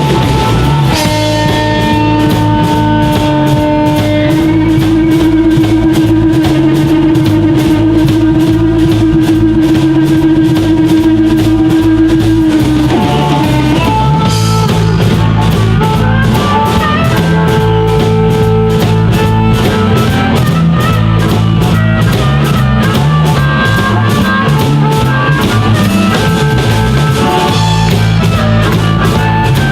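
Blues-rock band playing live with no singing: drum kit with a steady cymbal beat, bass and electric guitar. A lead line holds one long note with vibrato for about ten seconds, then moves on to shorter held notes.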